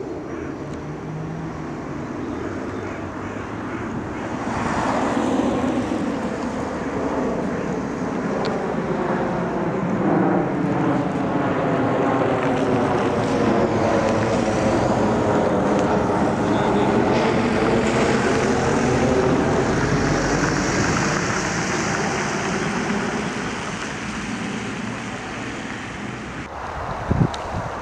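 Twin-engine jet airliner climbing out after takeoff and passing overhead. The engine noise swells about four seconds in, holds loud with a slowly sweeping, phasing tone as the jet passes, then fades as it flies away. A brief thump near the end.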